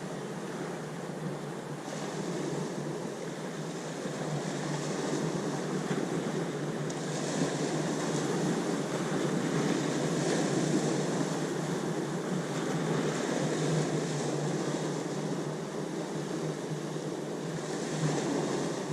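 Ocean waves washing in, a steady rushing hiss that swells in several surges a few seconds apart.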